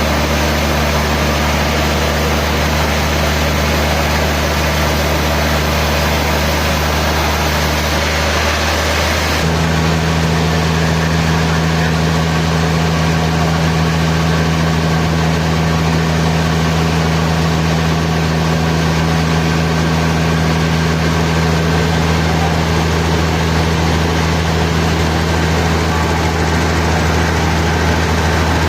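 Sawmill machinery running steadily with a constant hum, its pitch stepping up abruptly about nine and a half seconds in.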